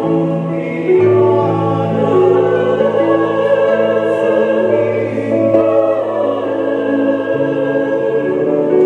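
Mixed choir singing a slow song, accompanied by a two-manual electronic organ playing held chords over steady bass notes.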